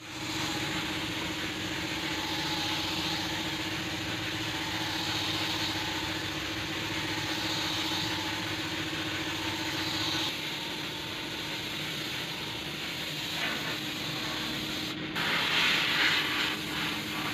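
Compressed-air hiss of a gravity-feed spray gun spraying paint, swelling with each pass and loudest near the end, over a steady low hum.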